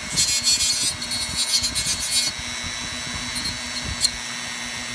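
Dremel rotary tool running with a steady whine, its bit grinding down a dogface puffer's overgrown dental plates in rasping spells for about the first two seconds. After that the tool runs on mostly free, with one brief touch and a sharp click later on.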